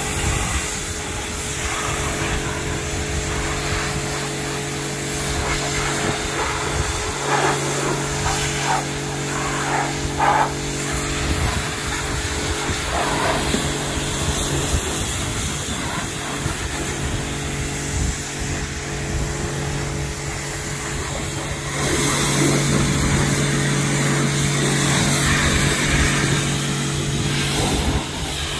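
Pressure washer running: a steady motor hum under the hiss of the high-pressure water jet spraying a ute's metal bodywork. The spray grows louder about three-quarters of the way through, as the jet works low along the side.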